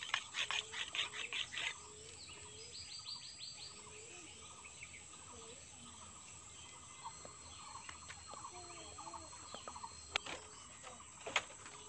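Quick rasping strokes of a long knife being whetted on a flat stone, about five a second, for the first two seconds. After that, birds chirping and insects over a quiet outdoor background, with two sharp knocks near the end from footsteps on a bamboo floor.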